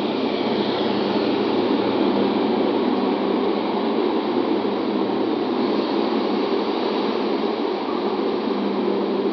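Scania K230UB single-deck city bus's diesel engine running as the bus pulls away and turns, under a steady wash of street noise.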